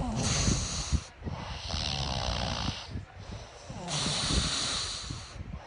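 A man snoring: three long, rough, fluttering breaths with a hiss, each lasting a second or more with short gaps between.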